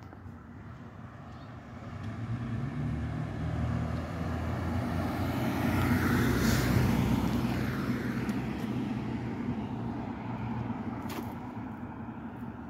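A vehicle driving past on the street: its engine hum and tyre noise get louder, peak about six seconds in, then fade away.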